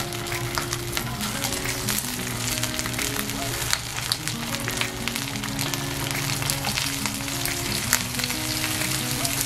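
Slices of char siu pork sizzling and crackling as they fry in oil in a non-stick frying pan, with more slices laid in as it goes.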